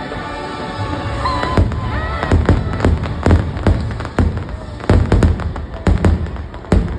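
Fireworks going off in a rapid series of sharp bangs, coming thicker from about a second and a half in.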